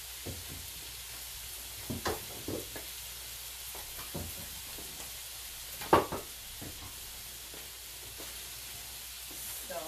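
Oil sizzling steadily as shrimp deep-fry in a pot and eggs scramble in a wok, while a wooden spatula stirs and knocks against the wok a few times, the loudest knock about six seconds in.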